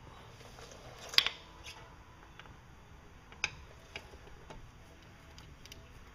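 A handful of sharp, irregular metallic clicks from a hand tool being worked against an outboard motor's gearcase. The loudest comes about a second in, and smaller ones follow every half second or so.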